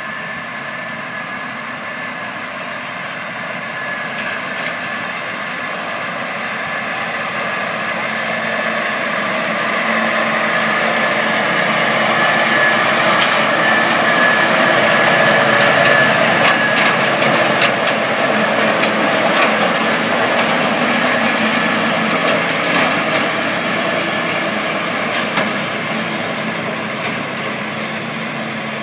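Valtra T193H tractor's six-cylinder diesel running under load as it pulls a McHale V660 round baler picking up cut grass, together with the baler's working noise. It grows louder as the rig passes close by about halfway through, then fades as it moves away.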